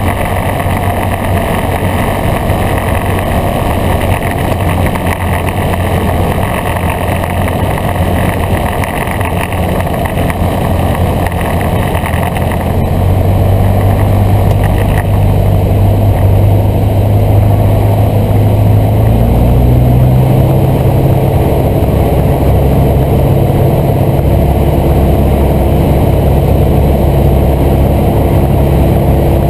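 Aircraft engine drone and airflow noise heard inside the cockpit on a landing approach: a steady low hum that gets louder and higher about thirteen seconds in and shifts pitch again around twenty seconds, as the engine power is changed.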